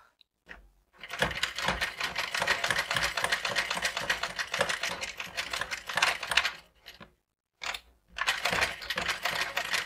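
Sewing machine stitching through crinoline and organza, a fast run of needle clicks. It starts about a second in, stops for about a second about two-thirds of the way through, and then runs on again.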